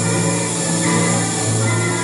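Background music from an old documentary's soundtrack, with steady sustained low notes.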